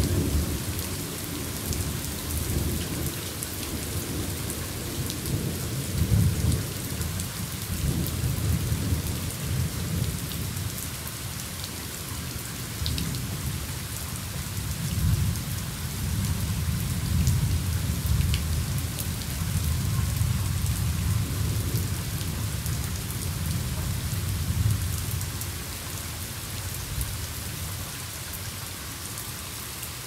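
Steady rain with a long roll of thunder that starts at once, swells several times and dies away near the end.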